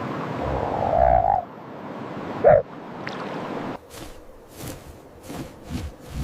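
A frog croaking twice over a steady hiss of background noise: first a longer, rattling croak, then a short, louder one. The hiss stops suddenly after that, and a few faint short clicks and scuffs follow.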